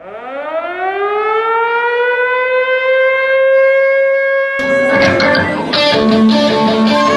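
A single sustained electric guitar note sliding up in pitch over about three seconds and then holding, like a siren. About halfway through, the full rock band with drums comes in.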